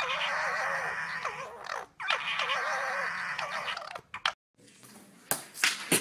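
Two red foxes screaming at each other in long, harsh, wavering cries, with a short break about two seconds in. The cries stop about four seconds in, and a few brief clicks and rustles follow near the end.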